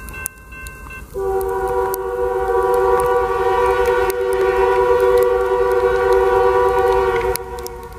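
Norfolk Southern diesel locomotive's air horn sounding one long chord of several notes for the grade crossing. It starts about a second in and cuts off near the end, over the ringing of the crossing bell.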